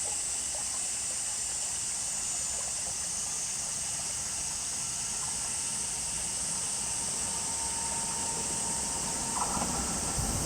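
Steady high hiss of outdoor ambience beside a railway line. About nine seconds in, the low rumble of an approaching train begins to rise.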